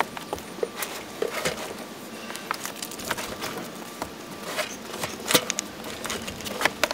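Swivel double front seat of a VW T6 van being turned round by hand: scattered clicks and knocks from the seat base and mechanism, with rustling of upholstery and clothing. The sharpest knocks come about five and a half seconds in and near the end.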